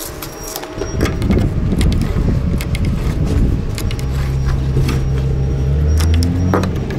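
An engine running, a low rumble that builds about a second in and settles into a steady hum. Light clicks and scrapes from a speed square and pencil marking wooden wall plates.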